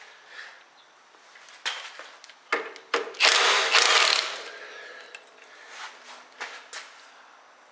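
Hand tools working on car steering parts: scattered metal clicks and clinks, with a louder rasping burst lasting about a second, around three seconds in.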